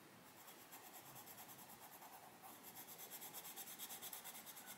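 Castle Arts Pasteltint coloured pencil scratching faintly on the paper of a colouring book in quick, even, back-and-forth shading strokes, a little louder in the second half.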